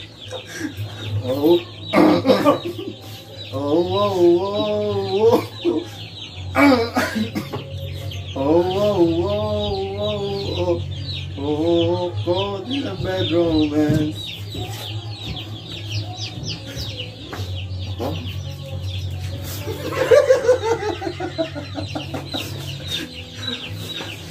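Chicken-like clucking in wavering, rising-and-falling, tune-like phrases of about two seconds each, repeated several times over a steady low hum.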